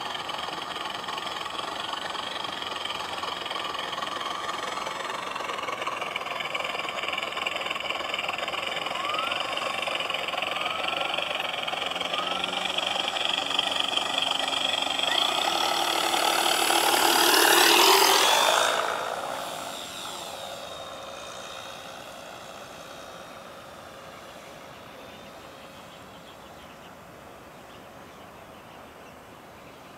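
Radio-controlled P-51 Mustang model with an onboard engine sound-effect unit flying past. Its simulated piston-engine drone and propeller noise grow louder, peak as it passes close a little past halfway with the pitch dropping, then fade as it flies away.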